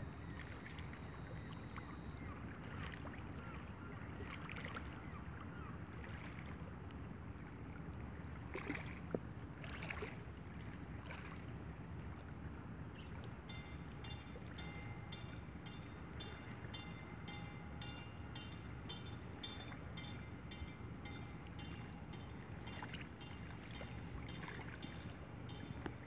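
Steady low outdoor rumble, with a few short chirps about a third of the way in. From about halfway, a faint pulsing ring repeats about twice a second.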